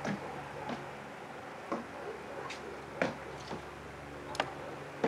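Small irregular clicks and taps of a pill bottle and cup being handled at a wooden bedside table, over a low steady hum.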